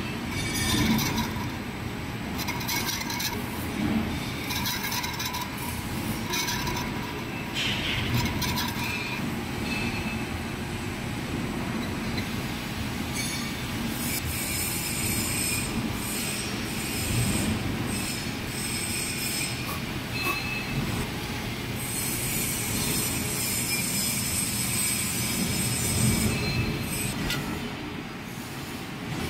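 Large lathe turning a brass bushing while a boring bar cuts an oil groove inside its bore: the machine runs steadily, and a high metallic squeal from the cut comes and goes in stretches.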